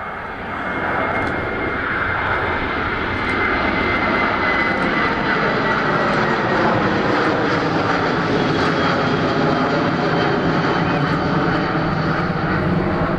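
Jet engines of a Ryanair Boeing 737 climbing out overhead after takeoff: a loud, steady jet roar that swells over the first second, with tones in it sinking slowly in pitch as the aircraft passes.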